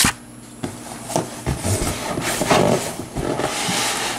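Cardboard box flaps and styrofoam packing scraping and rubbing against each other as they are handled, in irregular rustles, with a sharp knock at the very start.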